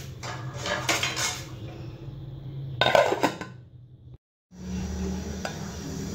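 Metal pot and lid clattering as the lid is handled and set onto the cooking pot, with a louder clank about three seconds in. After a brief break comes a low steady rumble of the daal boiling in the pot on the stove.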